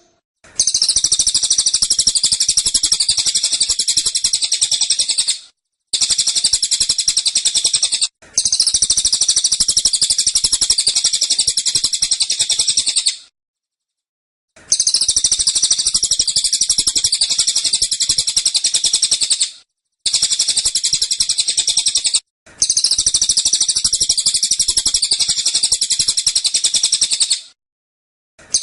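Cililin songbird singing its rapid, dense 'tembakan' (shooting) song: high-pitched notes fired in quick succession in long unbroken bouts, six of them, each a few seconds long and separated by short pauses.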